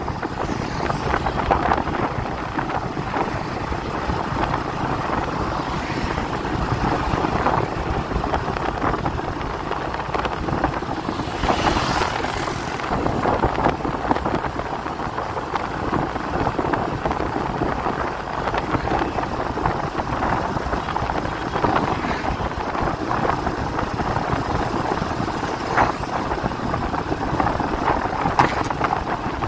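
Wind rushing over the microphone mixed with steady road and engine noise from a moving vehicle in strong wind. A louder whoosh swells up about twelve seconds in.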